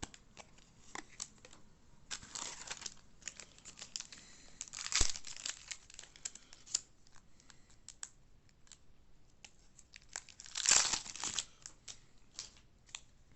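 Baseball card pack wrapper being torn open and crinkled, with small clicks of cards being handled; the loudest rips come about five seconds in and again near eleven seconds.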